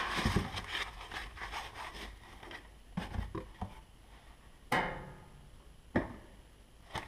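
Cardboard box and foam packing rubbing and rustling as a boxed car radio is lifted out, then a few sharp knocks on a wooden workbench, the loudest a little after halfway.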